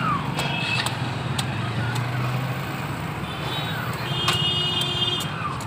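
Large knife chopping into a green coconut on a wooden block: a series of sharp, irregular strikes as the husk is cut open, over a steady hum of road traffic.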